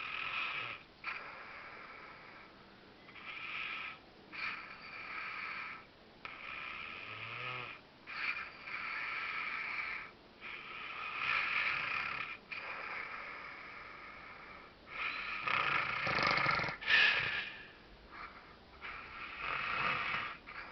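A man snoring in his sleep, one snore after another on each breath, about every one to two seconds, with the loudest snores about three quarters of the way through.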